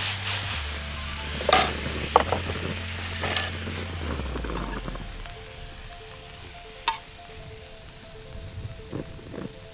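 Prawns sizzling in a hot frying pan as it is tossed, the sizzle dying away about halfway through. A few short knocks of the pan and utensils.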